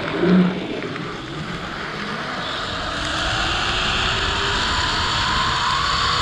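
Zipline trolley pulleys rolling along the steel cable, a steady whirr mixed with rushing air that grows louder about three seconds in as the ride picks up speed. A brief low bump just after the start.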